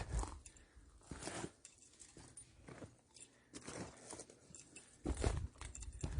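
Footsteps of a hiker climbing a steep trail, one step about every second. A low rumble comes over the microphone near the end.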